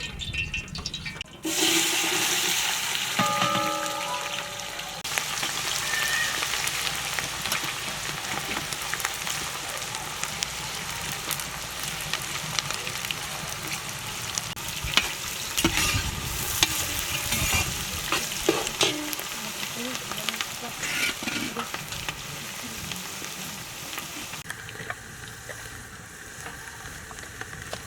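Food frying in hot oil: a loud sizzle starts suddenly about a second and a half in, as if food has just gone into the pan, and carries on steadily with occasional clicks.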